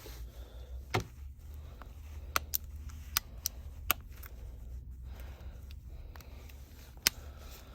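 Scattered small sharp clicks and taps from a smartphone's parts and repair tools being handled on a workbench, about seven in all with a longer gap near the end, over a steady low hum.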